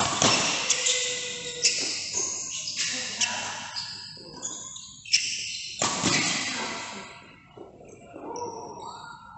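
Badminton rally: a string of sharp racket hits on the shuttlecock at irregular intervals, with short high squeaks, dying away over the last couple of seconds.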